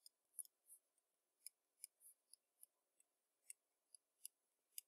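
Faint scratching of a pen writing on a paper worksheet, in short irregular strokes.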